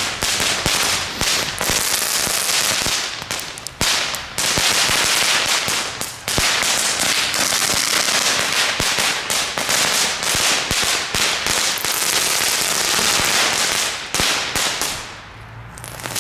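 Category 1 crackling firework going off on the pavement: a dense, unbroken string of rapid small pops and crackles, with short lulls about four and six seconds in, dying down near the end.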